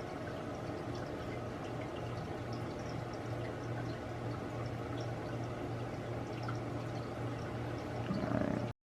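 Steady low hum and hiss of room tone with faint scattered small clicks, a little louder just after eight seconds, then an abrupt cut to silence near the end.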